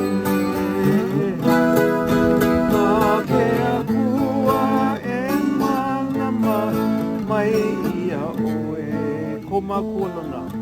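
Acoustic guitar being played, picked and strummed, in a Hawaiian song.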